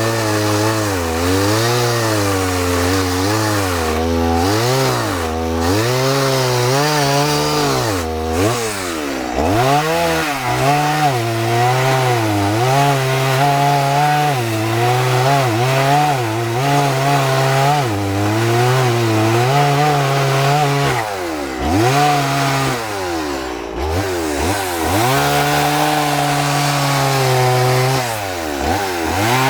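Chainsaw running and cutting into a wood log to block out the rough shape of a carving, its engine pitch repeatedly dropping under load and rising again as the cuts go in and come out.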